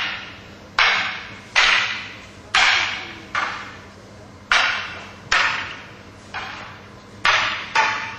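A run of sharp slaps, about nine in a row at roughly one a second, each ringing on in the large hall's echo.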